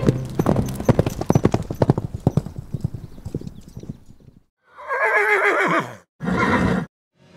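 Horse hoofbeats galloping, a fast run of strikes that fades away over about four seconds. Then a horse whinnies once in a long wavering call that falls in pitch, with a shorter sound right after it.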